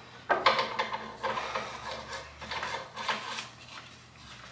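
3/4-inch metal pipe elbow fittings clinking and scraping against each other and the pipe as they are handled and fitted, an irregular run of short clicks and scrapes.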